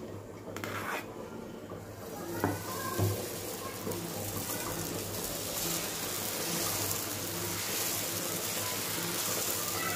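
Dosa batter sizzling on a hot griddle: a steady hiss that builds up a couple of seconds in and holds, with two light knocks near its start.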